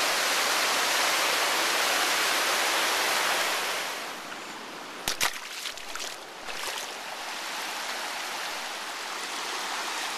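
Whitewater of a mountain river rushing over rocks, a steady loud rush that becomes quieter about four seconds in. A few sharp knocks come around five to seven seconds in.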